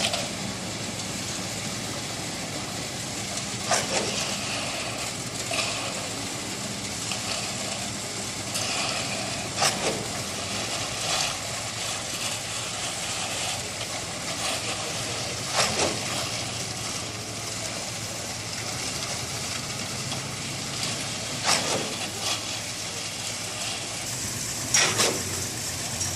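An engine running steadily, with sharp knocks at irregular intervals, about eight in all.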